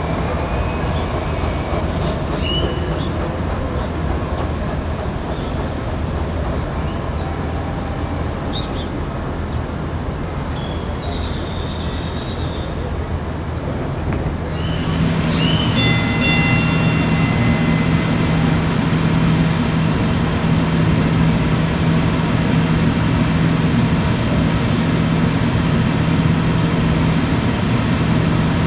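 DART light rail train running at a station: a steady low hum that grows louder about halfway through, when a steady drone and thin high tones set in as a train moves along the track.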